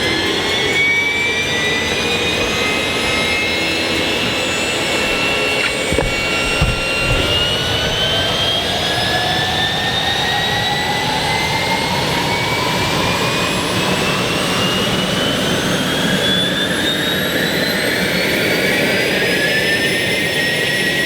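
Turbine helicopter engine spooling up during start, a whine that rises slowly and steadily in pitch, with a brief knock about six seconds in.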